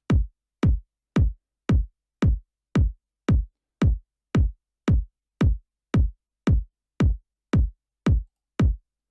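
Soloed electronic kick drum from a house drum loop, playing a steady beat of about two hits a second, each hit a quick downward pitch sweep into deep bass. The kick is peaking, its peaks clipping the master track.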